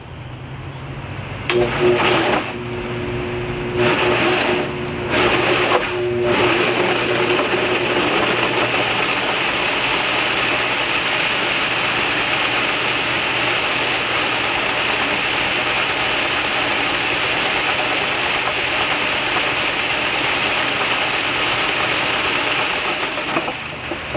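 Homemade motor-driven flail thresher, a plywood drum turned by an electric motor through a V-belt, starting up and running loudly as it beats rye heads. There are a few louder surges in the first six seconds, then a steady noisy whir that dies down just before the end.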